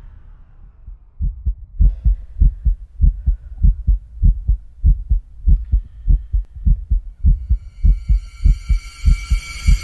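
Heartbeat sound effect: low lub-dub thumps, one pair about every two-thirds of a second, starting about a second in. Near the end a high ringing drone of several steady tones fades in over it.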